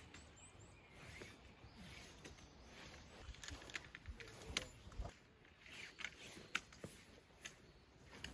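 Faint rustling with scattered light taps and clicks, irregular, two sharper taps a couple of seconds apart midway.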